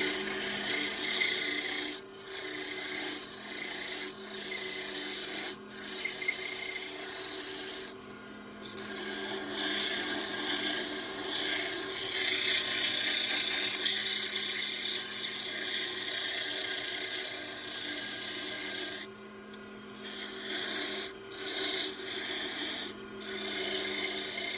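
A turning tool cutting wood spinning on a wood lathe: a steady hiss of the cut over the hum of the running lathe. The cut breaks off briefly several times, about 2, 5, 8, 19, 21 and 23 seconds in, while the lathe keeps humming.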